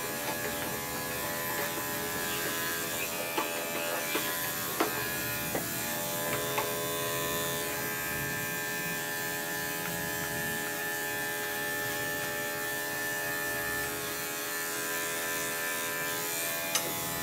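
Electric dog-grooming clippers running with a steady buzz as they shave a matted dog's coat short, with a few faint clicks.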